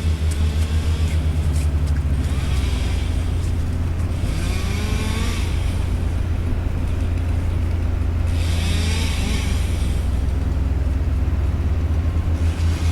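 Engine of nearby working machinery running steadily, its pitch rising and falling as it revs, with four hissing bursts of about a second each.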